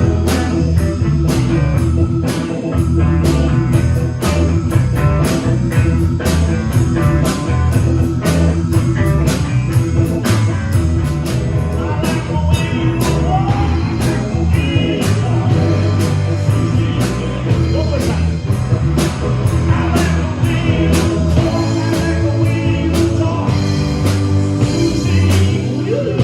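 A rock band playing a bluesy rock number: electric guitar over a drum kit keeping a steady beat, with a melodic line that bends in pitch over the second half.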